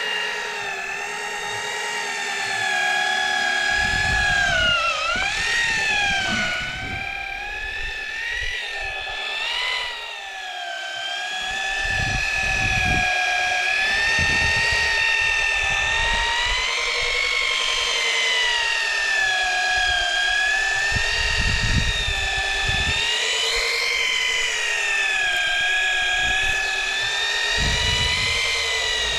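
Electric fishing reel winding in a hooked fish from depth: a steady motor whine that wavers and sags in pitch as the load on the line changes, with a clear dip about five seconds in. Gusts of wind rumble on the microphone.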